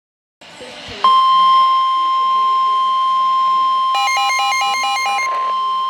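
NOAA Weather Radio warning alarm tone: a brief burst of radio hiss, then a single steady high tone near 1050 Hz starting about a second in, the signal that a warning broadcast is about to follow. About four seconds in, a rapid alternating beep pattern sounds over it for about a second.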